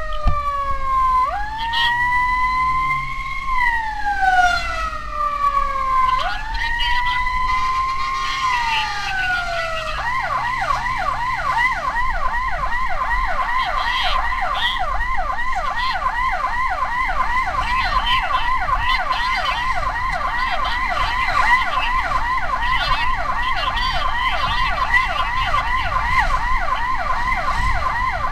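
Emergency vehicle siren sounding loudly: a slow wail that rises and falls, switching about ten seconds in to a fast, rapidly repeating yelp.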